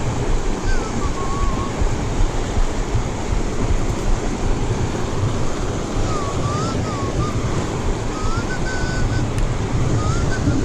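Fast mountain river water rushing over a rocky riffle, with wind on the microphone. Over it a person whistles short wavering tunes: once about a second in, and again from about six seconds on.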